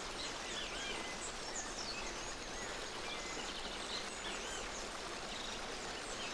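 Tropical forest ambience: many small birds chirping in short up-and-down notes over a steady hiss.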